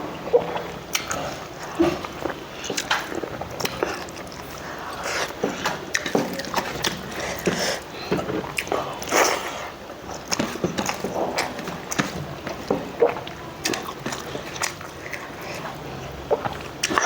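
A person eating rice close to the microphone, chewing with wet mouth clicks and smacks at irregular intervals.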